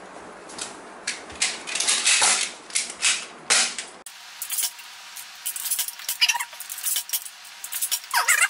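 BoomCo toy blaster being cocked and fired repeatedly, a run of sharp plastic clacks and snaps, with Smart Stick suction darts smacking onto a wall target.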